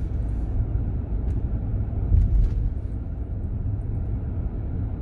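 Steady low rumble of a car being driven, heard from inside the cabin, with a few faint knocks and a brief louder jolt about two seconds in.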